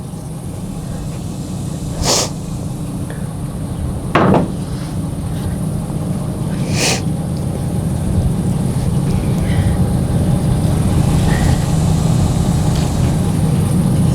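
Truck engine running with a steady low rumble that grows gradually louder, with three sharp knocks about two, four and seven seconds in.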